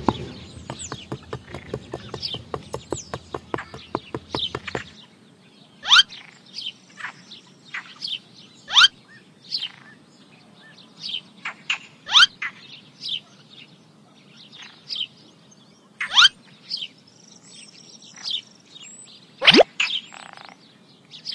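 Birds chirping: short, sharp chirps that sweep quickly downward in pitch, coming every second or so over a faint steady hum. In the first five seconds a fast, even ticking, about five a second, runs underneath.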